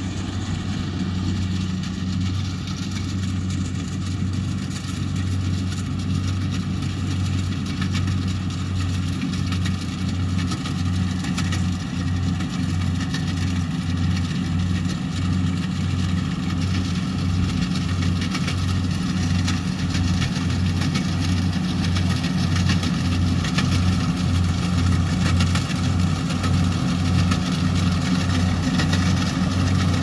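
Kubota combine harvester running as it cuts rice, a steady low engine drone with a mechanical haze above it. The drone pulses evenly for a stretch in the middle and grows a little louder as the machine comes closer.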